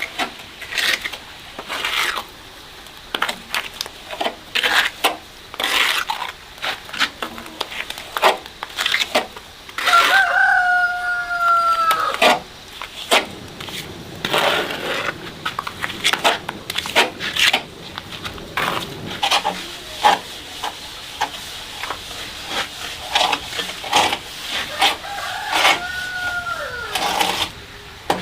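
A rooster crowing twice, each crow a long held call that drops in pitch at the end, about ten seconds in and again near the end. Between and under the crows, repeated short scraping and knocking strokes.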